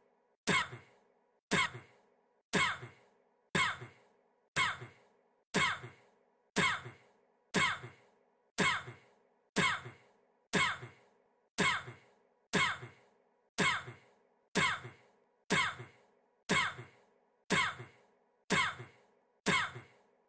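A man's single short cough, looped so that the identical cough repeats about once a second, each one starting sharply and dying away quickly.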